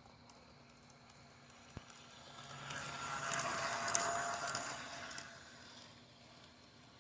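G scale GP38-2 model diesel locomotive passing close by on garden railway track: a steady whine with fine rapid clicking swells up and fades away, loudest about four seconds in.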